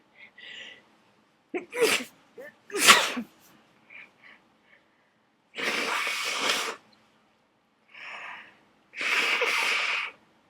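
A person sneezing: two sharp, loud sneezes about two and three seconds in, then longer, noisy breathy sounds. This is part of a sneezing fit brought on by attic dust.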